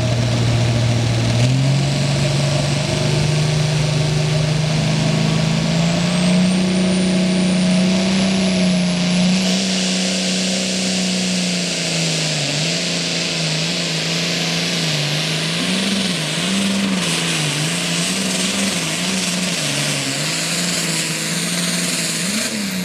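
Pulling tractor's diesel engine revving hard on the sled. Its pitch steps up and then climbs and holds, with a thin high whistle rising over it. About halfway through, the pitch starts wavering up and down as the tractor pulls the sled down the track.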